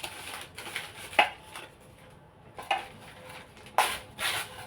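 Newspaper being handled and pressed into a greased baking bowl: short bouts of paper rustling and crinkling with a couple of sharp clicks against the bowl.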